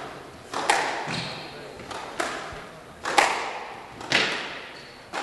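Squash rally: the ball being struck by the rackets and cracking off the court walls about once a second, each hit ringing on in the reverberant glass-backed court, with a few short high squeaks between the hits.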